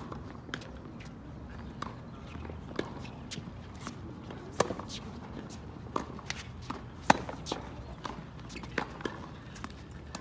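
Tennis groundstroke rally on a hard court: sharp pops of racquets striking the ball and the ball bouncing, at irregular intervals, the loudest strikes coming every second or two through the middle.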